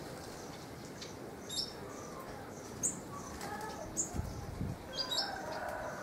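Small seed-eating finches feeding on the ground give short, high-pitched chirps, a few single notes spaced a second or so apart, over a steady background hiss. A low, muffled thud comes about four seconds in.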